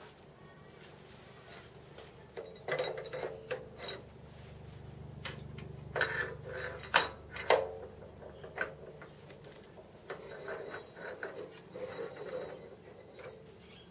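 Metal parts and tools clinking, clattering and ratcheting in three bursts, typical of a machinist handling and setting up a steel bar at the lathe, over a faint steady hum.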